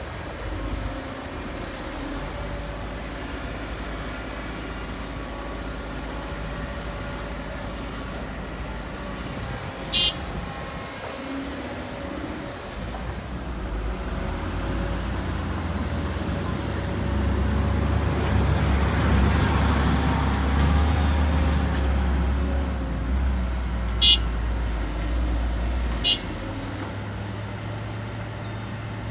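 Heavy diesel earthmoving machinery running, its engine drone growing louder through the middle as it works harder or comes closer. Three short sharp sounds cut through it, one about a third of the way in and two near the end.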